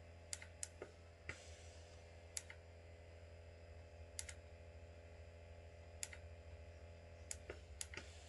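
Near-quiet room tone with a steady low hum and about ten faint, short clicks scattered at irregular intervals.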